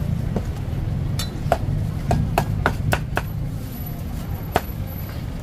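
Meat cleaver chopping on a wooden cutting board: a series of about nine sharp chops, quickest in a run of three or four a second in the middle, with a last single chop near the end.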